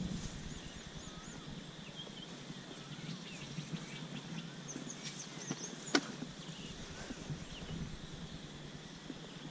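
Birds calling in short, repeated, rising-and-falling chirps over a steady high insect drone, with one sharp click about six seconds in.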